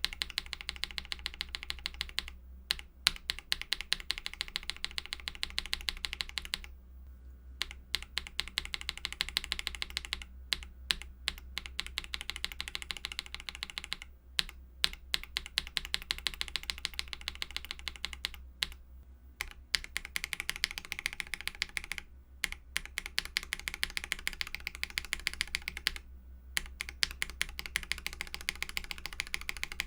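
Fast, continuous typing on a mechanical keyboard fitted with lubed Akko CS switches, many keystrokes a second with a few short pauses.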